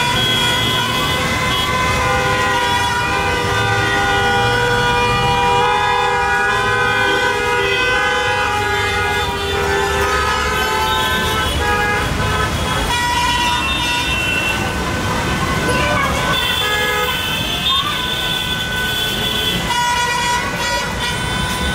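Many vehicle horns honking in a jammed road, several held at once and overlapping for seconds at a time, over the low rumble of idling and creeping traffic.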